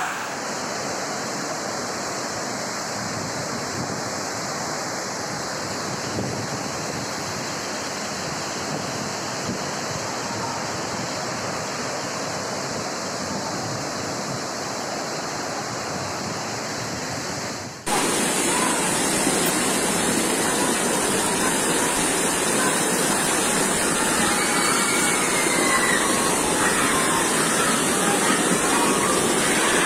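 Torrent of muddy floodwater rushing through narrow streets: a steady, even rush of water noise. About two-thirds of the way through it switches abruptly to a louder, brighter recording of the rushing flood.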